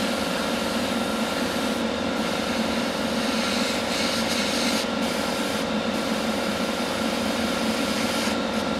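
Hobby airbrush compressor running with a steady hum, under the hiss of air through an airbrush; the hiss is strongest for about a second midway.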